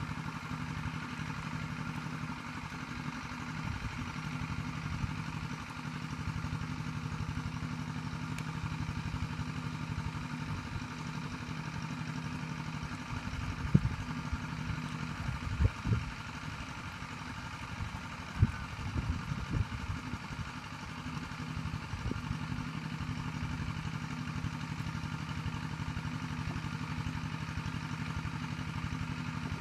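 A small engine running steadily with an even drone. About halfway through, a few short wet slaps and splashes come from hands groping in shallow muddy water.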